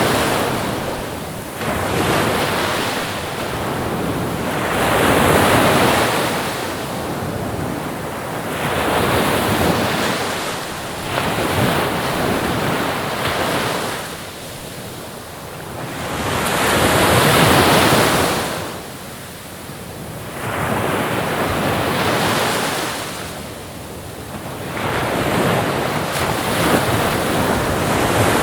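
Ocean waves surging and washing onto a shore, rising and falling in slow swells a few seconds apart.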